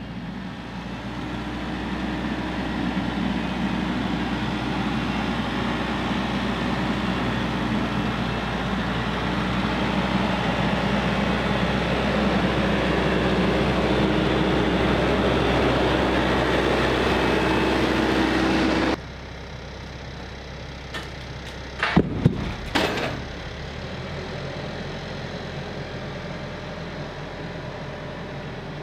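Diesel engine of a TYM 574 Hydro C tractor running steadily, growing louder as the tractor comes closer. It cuts off abruptly about two-thirds of the way through, leaving a quieter steady hum with a few sharp knocks.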